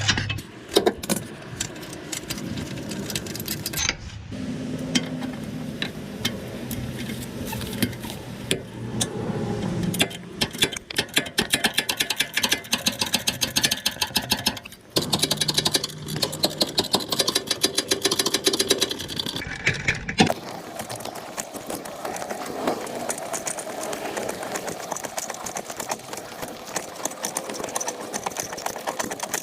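Repair-work sounds in several short cuts: tools and metal parts clicking, knocking and clinking, with stretches of a steady low running tone between them.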